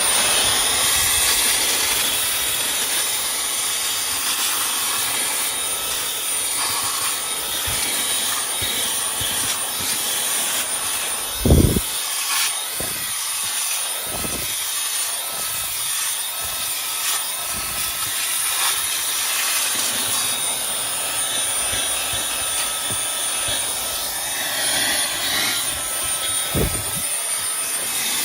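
Cordless handheld car vacuum with a brushless motor running steadily, a high-pitched whine over rushing suction hiss, stepping up in pitch at the start as a higher speed is selected. A few short low thumps, the loudest about a third of the way in and another near the end.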